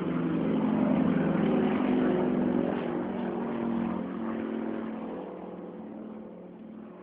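A propeller airplane's engine droning as it flies past. It is loudest a second or two in, then fades away over the last few seconds as the plane recedes.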